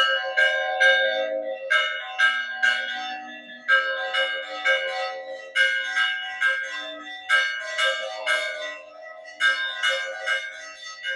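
Church bells of a small old village church rung by hand, struck in quick runs of several strokes with short pauses between, each stroke ringing on, and a lower bell sounding now and then. The ringing announces the start of the village fiesta.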